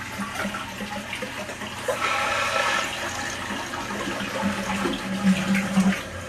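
Toilet being flushed after a tank rebuild: water rushes steadily from the tank into the bowl, louder from about two seconds in, and eases off near the end.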